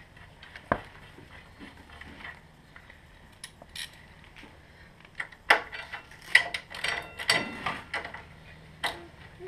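Hand ratchet wrench clicking on the bolts at a motorcycle's front fork and brake caliper, with metallic tool clinks. A few single clicks come first, then a quick run of ratcheting and clinking from about halfway through.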